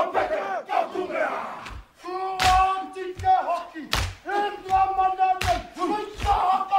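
A group of Māori men performing a haka, chanting and shouting in unison. Rapid shouted lines give way, about two seconds in, to long held notes broken by heavy thuds roughly every second and a half.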